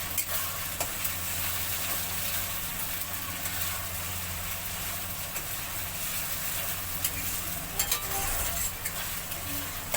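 Ginger paste and spices sizzling in hot oil in a pan while being stirred, with a few sharp spatula clicks against the pan about eight seconds in, over a steady low hum.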